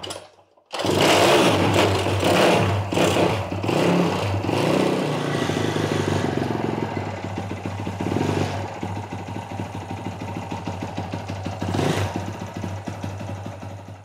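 A 20 hp mini-bike engine fires up about a second in on a dose of brake cleaner and runs loud and uneven, its speed rising and falling for the first few seconds. It then runs on more steadily and a little quieter until it fades right at the end. The engine has only about 75 psi compression, which the owner takes for a lemon engine.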